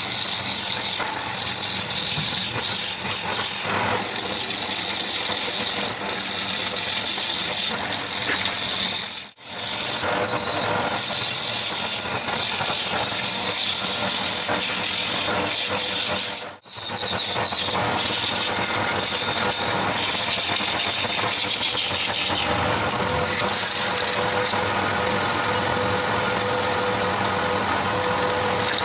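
Woodturning lathe running steadily, a loud continuous machine noise that cuts out briefly twice.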